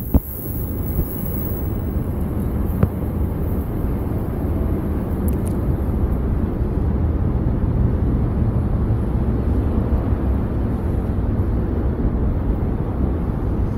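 Steady low rumble of a NJ Transit commuter train running along the line at a distance.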